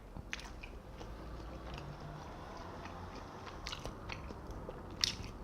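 Close-miked chewing of soft steamed scallop meat: quiet wet mouth sounds with a few sharp lip smacks, the loudest about five seconds in.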